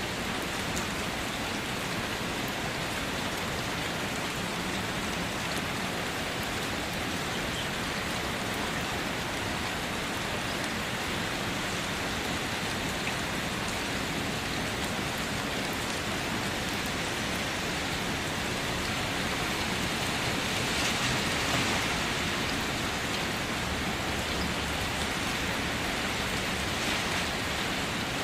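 Steady rain drumming on a car, a dense patter of drops on the metal and glass, swelling slightly about three-quarters of the way through.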